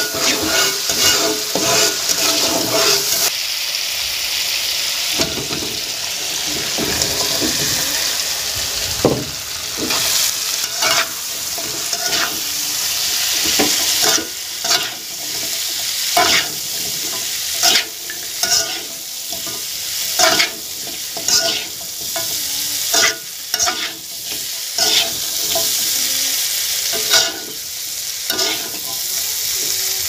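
Food frying in hot oil in a pan: a steady sizzle, with frequent short scrapes and knocks as it is stirred and turned with a spatula.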